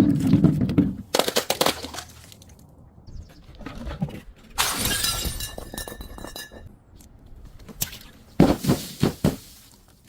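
Glass bottle being broken: several crunching, shattering bursts. The loudest, about halfway through, rings on for about two seconds as the glass shatters.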